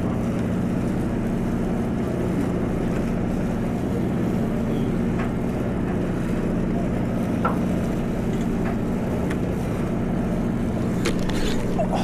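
Party fishing boat's engine running steadily with an even low hum, and a few light clicks near the end.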